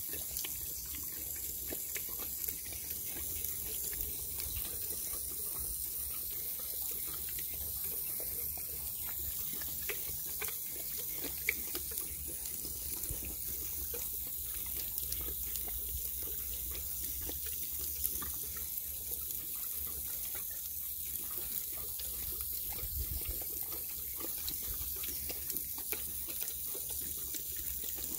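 Water running steadily from a garden hose spray nozzle while a Saint Bernard drinks straight from the stream, with a few brief wet clicks of its mouth at the nozzle.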